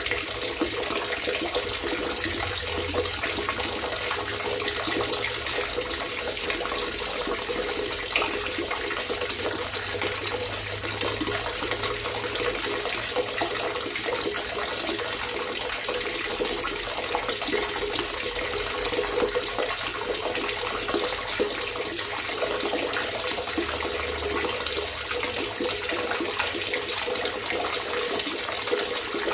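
Water trickling and gurgling steadily, a continuous splashing with no breaks.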